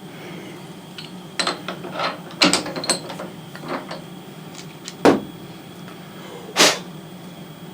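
Irregular clicks and knocks of a small machined metal part being handled, with a sharper knock about five seconds in and a short scrape a little over a second later. A steady shop hum runs underneath.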